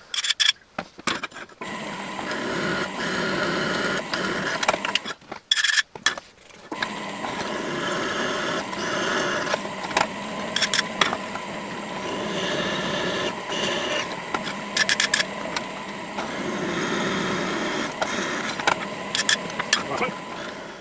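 Bench drill press running and drilling pilot holes, its motor running with a steady hum. It comes in several stretches of a few seconds each, broken by short pauses and sharp clicks.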